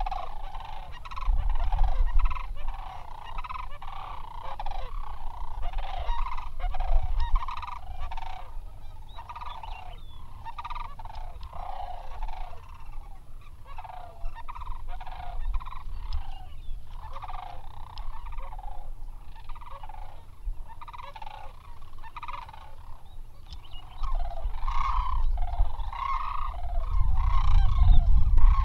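A flock of sandhill cranes calling, many calls overlapping without a break. A low wind rumble on the microphone comes and goes and is strongest near the end.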